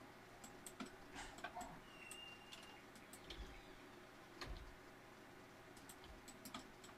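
Near silence with faint, irregular clicks of a computer mouse, a dozen or so, and a couple of dull low thumps.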